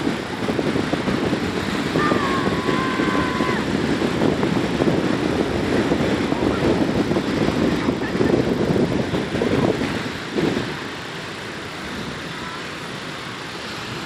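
Surf breaking and washing up on a sandy beach, a steady rush of waves that drops noticeably in level about ten seconds in.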